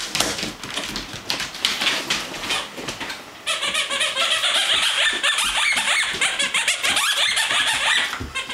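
Squeaky toy hippo squeaked again and again by a Newfoundland puppy biting on it: uneven squeaks for about three seconds, then a fast, unbroken run of squeaks that stops near the end.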